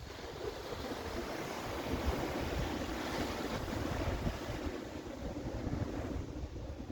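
Sea surf washing on the shore, swelling over the first couple of seconds and easing off near the end, with wind gusting on the microphone.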